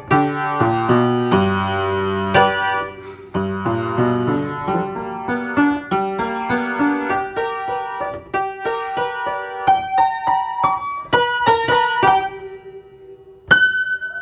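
Background music played on a piano-like keyboard: chords at first, then a run of single higher notes, ending on one struck note near the end that rings out and fades.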